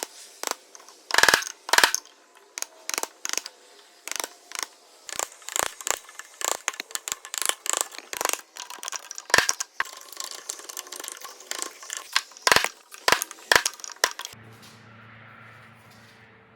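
Irregular sharp clicks and knocks, several a second, of hand tools working and handling wood, stopping about fourteen seconds in, after which a faint low hum remains.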